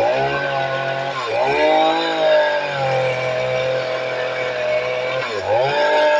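A 60 cc engine running at high throttle, its pitch dropping sharply and recovering three times as it bogs under load during a splitting test.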